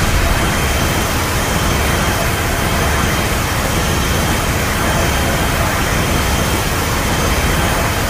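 Loud, steady rushing noise with a deep rumble underneath, like a jet engine or a sustained blast, used as a sound effect.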